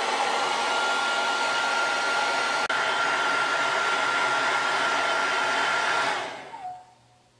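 Hair dryer blowing steadily, a loud rush of air with a thin, steady whine, aimed at a laptop motherboard's chipset to heat it. About six seconds in it switches off and its motor winds down with a short falling whine.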